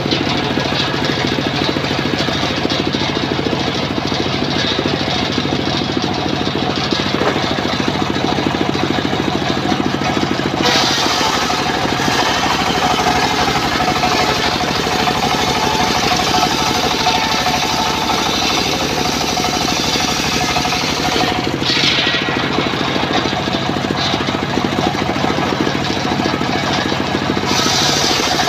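Homemade engine-driven circular saw bench running at speed while its blade rips a log slab into rafters. The engine and the blade cutting the wood make one continuous din, which gets a sharper, hissier edge twice along the way.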